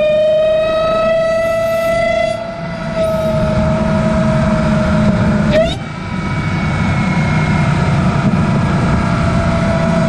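Dodge Charger Hellcat's supercharged 6.2-litre HEMI V8 pulling under throttle, heard from inside the engine bay through a Legmaker cold-air intake: a loud supercharger whine over the engine's low drone. The whine climbs slowly in pitch and dips briefly twice, about two and a half and five and a half seconds in, with a sharp drop in pitch at the second dip.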